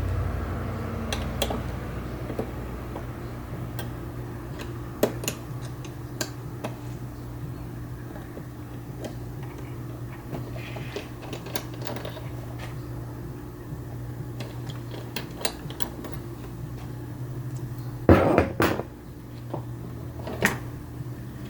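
Scattered light clicks and knocks of hand tools and plastic body parts being handled while a motorcycle's tail is taken apart, with a louder burst of clatter about eighteen seconds in, over a steady low hum.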